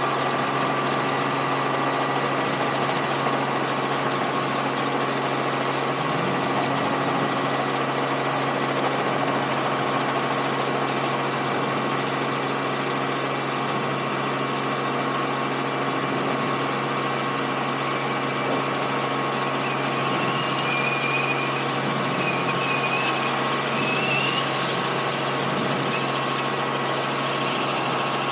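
Robinson R44 helicopter heard from inside the cabin: its six-cylinder Lycoming piston engine and main rotor run steadily with a constant low hum and whine, as the helicopter lifts off from the runway and climbs away.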